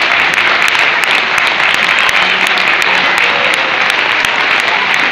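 Audience applauding steadily, with single claps standing out close by.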